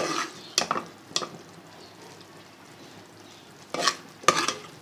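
Macaroni being stirred and mixed in a cooking pot, with short scraping strokes against the pot: several in the first second or so, a pause, then two more near the end.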